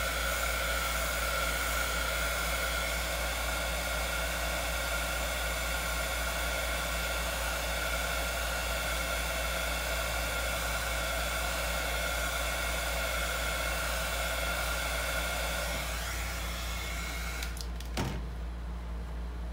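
A small electric blower motor, heat gun or hair-dryer type, runs steadily with a high whine and cuts off near the end, followed by a single sharp click.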